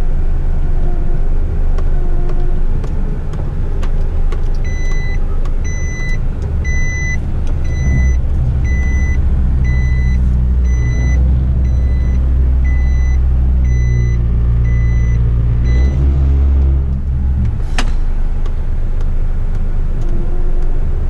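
Front-lift rubbish truck's diesel engine running, heard from inside the cab, revving up from about eight seconds to sixteen seconds to drive the hydraulic forks as they raise a waste bin. A warning beeper sounds about once a second from about five seconds in until the revs drop, followed by a single sharp click.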